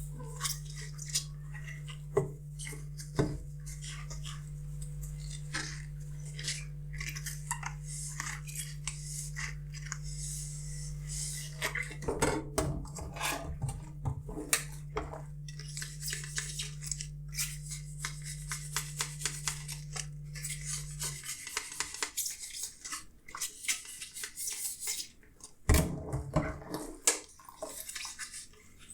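Dishes being washed by hand: plates and cutlery clinking against each other, with scrubbing and rubbing sounds. A steady low hum runs under it and stops about two-thirds of the way through, and there is a louder clatter near the end.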